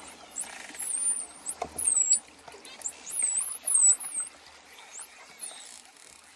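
Dolphins whistling: clusters of high, quickly sweeping whistles, mostly falling in pitch, over a hiss of moving water, growing quieter toward the end.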